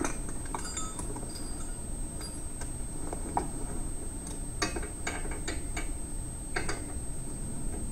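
Ratchet wrench clicking in short runs of strokes as the U-bolt nuts clamping a trailer leaf spring to the axle are tightened, with a quick run of about five clicks a little past the middle.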